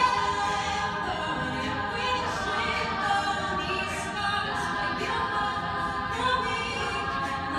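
All-female a cappella group singing live, many voices together in chords with no instruments.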